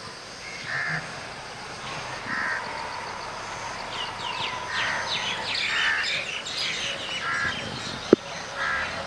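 Crows cawing, with short caws repeated every second or two and small birds chirping high behind them. One sharp click comes near the end.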